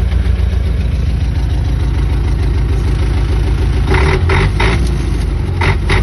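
Engine of an old off-road vehicle running steadily at low revs as it crawls along a muddy track. About four seconds in, and again near the end, comes a quick run of short, sharp sounds over the engine.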